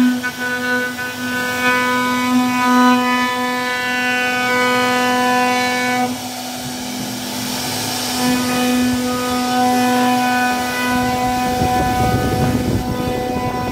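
CNC router spindle whining at a steady pitch as its bit carves a relief pattern into a wooden panel. The whine breaks off briefly about six seconds in. Near the end, a rougher low noise rises under it.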